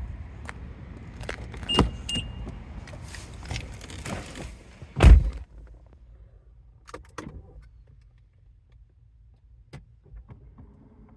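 Car door and key handling: rustling and clicks with two short high beeps, then a heavy door-shutting thump about five seconds in. A few faint clicks follow, and a low steady hum starts near the end.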